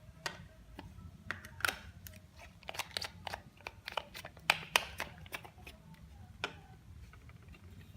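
Irregular plastic clicks and rustling from handling bottles of printer ink and the Epson ink-tank caps between one colour and the next, the loudest click about halfway through.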